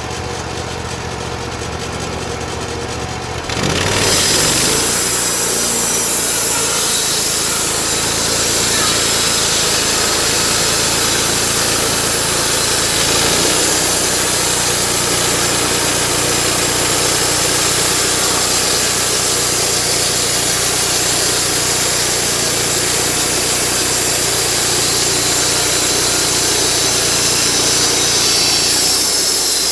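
Portable bandsaw sawmill's engine running at idle, then about three and a half seconds in it revs up and the band blade cuts along a log, giving a loud, steady sawing noise.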